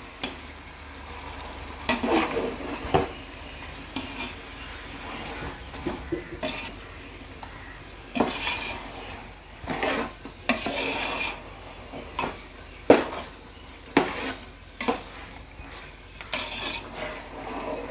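Metal spatula scraping and knocking against a large aluminium pot as raw chicken is stirred into frying masala, in irregular strokes about every second or two, over a steady sizzle.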